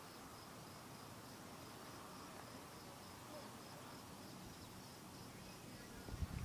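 Faint insect chirping, an even run of high-pitched pulses, over a quiet outdoor hiss; a few low thumps come in near the end.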